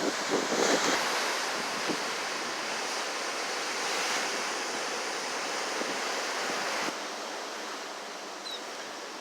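Ocean surf washing on the beach, mixed with wind on the microphone. The level drops abruptly about seven seconds in, and a couple of faint, short, high chirps come near the end.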